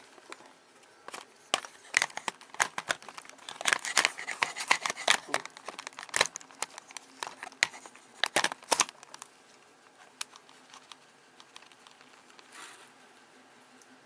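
Crinkling and clicking handling noise: a fast, irregular run of sharp crackles and taps for about eight seconds, stopping about nine seconds in.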